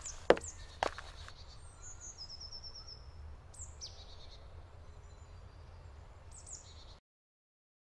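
Forest ambience with birds singing and calling in short phrases, one a quick run of stepped notes, over a low steady rumble. A few sharp clicks come in the first second, and the sound cuts off abruptly about a second before the end.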